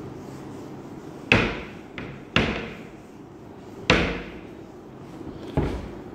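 A whiteboard being wiped with a handheld duster, knocking against the board: five sharp knocks at uneven intervals, the loudest about a second in and near the middle.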